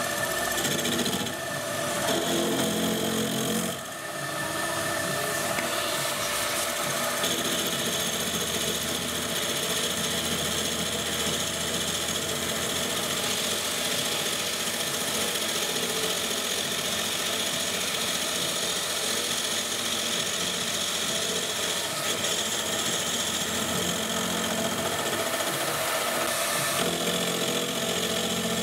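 Wabeco F1200 milling machine running steadily while a face-milling cutter takes a facing cut across a cast Stuart No.1 steam-engine part. The sound dips briefly about four seconds in, then runs on evenly.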